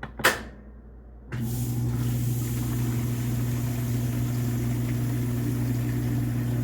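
A short click, then a washing machine's drain pump starts about a second in and runs with a steady electric hum and rushing water, pumping into a partly clogged standpipe.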